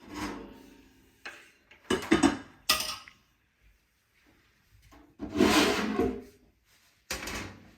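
Handling noises around a reptile tank: a few sharp knocks and clunks, then a longer scraping, sliding sound about five seconds in and a shorter one near the end.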